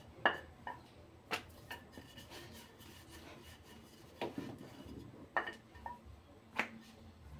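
Wooden rolling pin rolling out chapati dough on a floured granite countertop: soft rubbing broken by several short, sharp knocks.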